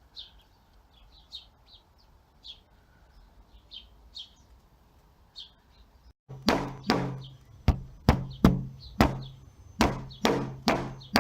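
Faint small-bird chirps over a quiet outdoor background. After about six seconds, a cut brings a run of loud, sharp, ringing knocks, roughly two a second.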